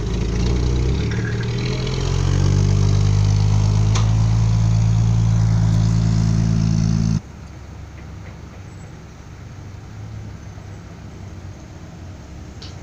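Dump truck's diesel engine revving up and holding a steady high note under load. About seven seconds in it drops suddenly to a quieter, even rumble.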